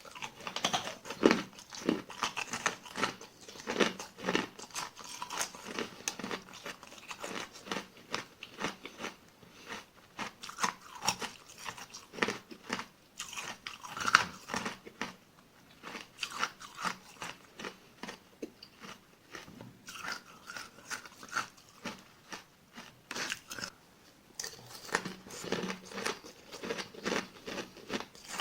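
Small ice granules being bitten and chewed close to the microphone: a steady run of crisp cracks and crunches, with a few short lulls between mouthfuls.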